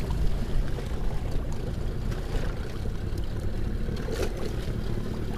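Steady wind rumbling on the microphone over choppy open water, with water lapping and splashing around the boat.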